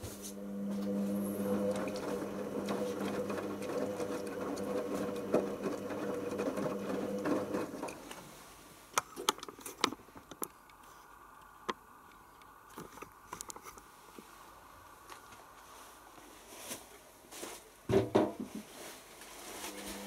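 Hoover Optima OPH714D front-loading washing machine tumbling a load of towels in its pre-wash. The drum motor hums steadily for about eight seconds, then stops, leaving scattered clicks and knocks from inside the drum with one louder knock, and the motor starts up again near the end.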